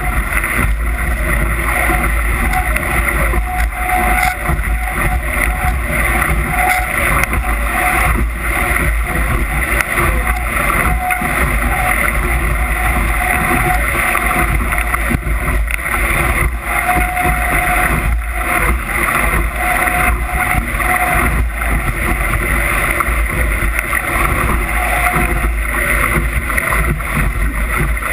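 Wind buffeting the microphone over water rushing along the hull of a Musto skiff sailing in gusty wind, a loud continuous rush with no let-up.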